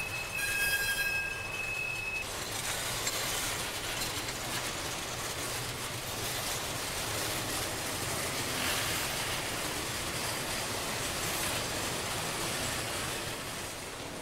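Freight train cars rolling past at close range, with a steady high wheel squeal lasting about the first two seconds.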